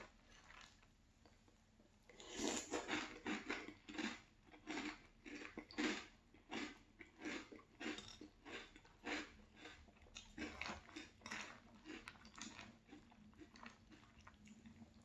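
Close-miked chewing of a mouthful of Boo Berry cereal in milk: quick crunches, about two to three a second, starting about two seconds in and thinning out toward the end.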